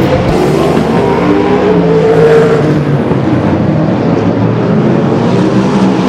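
Race car engines running hard as several cars lap the track, overlapping engine notes rising and falling in pitch.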